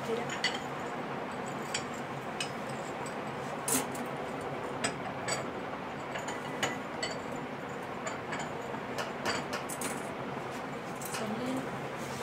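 Scattered light clinks and taps, a dozen or so at irregular intervals, the sharpest about four seconds in, from glass and metal being handled at a glass display cabinet of cups and glasses, over a steady hiss.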